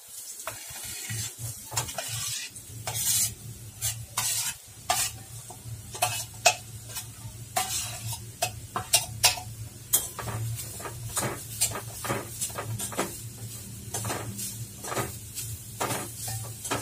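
Metal spoon stirring grated fresh coconut in hot ghee in a stainless steel pan, with irregular scrapes and clinks of spoon on steel and a light sizzle, over a low steady hum.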